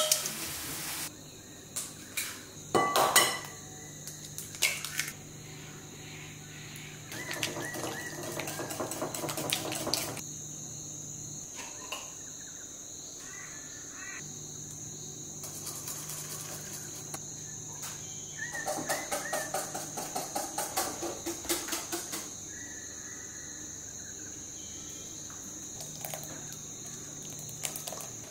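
Insects droning in a steady, high-pitched chorus. A few sharp knocks and clatters come in the first seconds, and twice there is a burst of rapid, pulsed calling lasting a few seconds.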